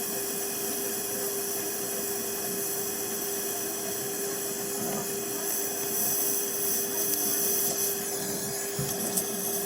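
A steady mechanical hum with hiss, one constant tone held throughout, typical of a motor-driven machine running during refrigeration repair work.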